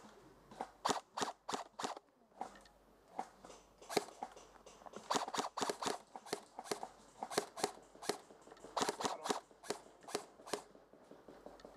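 Airsoft guns firing: sharp snaps in short volleys of a few shots each, coming every second or so.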